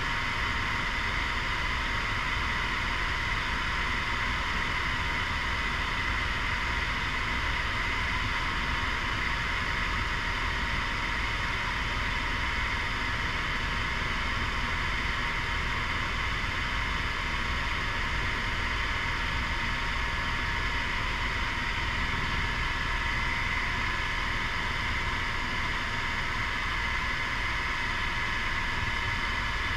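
Steady helicopter cabin noise in flight: the drone of the rotor and engine with a hiss and a thin, steady whine on top.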